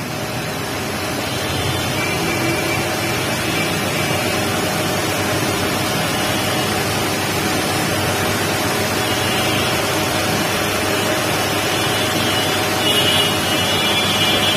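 Steady rushing background noise with a faint steady hum over it, rising a little over the first two seconds and otherwise unchanging.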